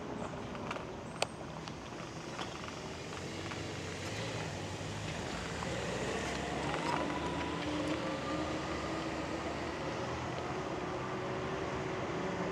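City street traffic noise, with a car driving past close by around the middle and a single sharp click a little over a second in.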